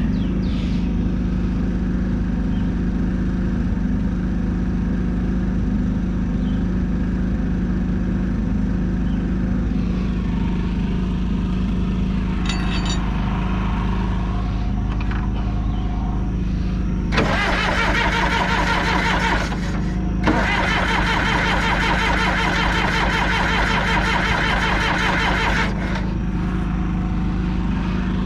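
A steady low engine hum runs throughout. About seventeen seconds in, a John Deere 450C bulldozer's diesel is cranked over by its starter for about two and a half seconds, then, after a brief pause, for about five seconds more. The cranking is part of bleeding air out of the fuel system after the engine shut off.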